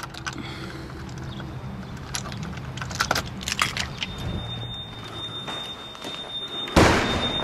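Keys jangling and clicking in a door lock as a gym's front door is unlocked. About four seconds in, a steady high electronic tone starts and keeps sounding. Near the end comes a short, loud rush of noise.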